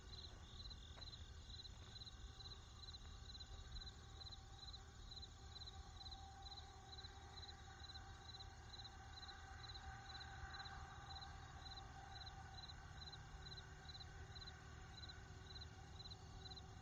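Crickets chirping in a steady, evenly spaced rhythm, about three chirps a second, over the faint low rumble of distant road traffic.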